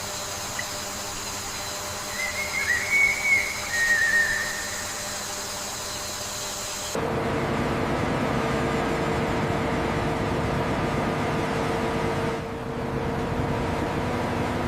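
A steady background hum with a few short warbling whistles, like birdcalls, about two to four seconds in. Halfway through, it switches abruptly to a louder steady mechanical drone with a held low tone, typical of running heavy machinery.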